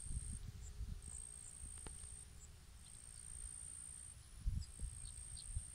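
Insects trilling in a steady, very high-pitched buzz that comes in stretches of a second or so with short breaks. Under it are low gusts of wind buffeting the microphone, strongest about four and a half seconds in.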